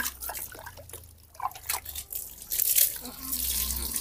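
Water splashing and dripping as a baby monkey is rinsed with water scooped from a plastic bucket, running off its wet fur onto the ground, with a busier run of splashing in the second half.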